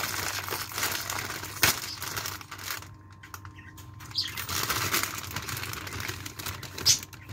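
Plastic bag of fresh green beans crinkling as it is pulled open, with a sharp snap about one and a half seconds in. After a quieter spell the bag rustles again as it is tipped over the pot, with another sharp click near the end.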